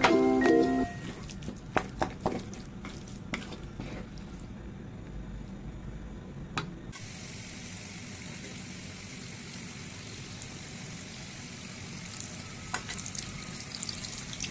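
A spatula stirring and knocking through curry puff filling in a pan, with scattered clicks in the first few seconds. About seven seconds in, curry puffs are deep-frying in hot oil: a steady sizzle, with a few spatula clicks near the end.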